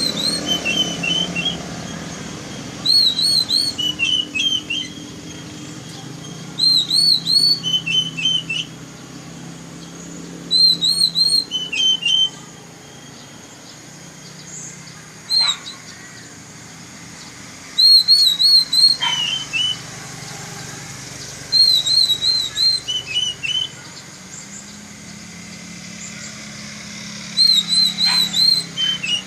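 Oriental magpie-robin (kacer) singing: the same short whistled phrase repeats about every four seconds, a quick run of rising-and-falling notes followed by a lower run of notes. A steady low hum runs underneath, and a few sharp clicks fall between phrases.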